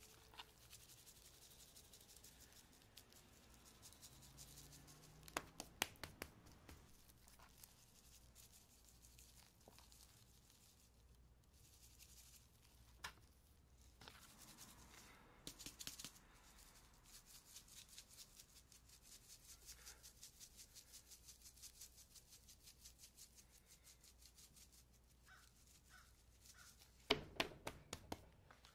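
Near silence with faint handling sounds of seasoning a raw beef strip loin on a plastic cutting board: rub shaken from a bottle and patted onto the meat. There are a few clusters of sharp taps, and a faint, even ticking of about three a second through the middle.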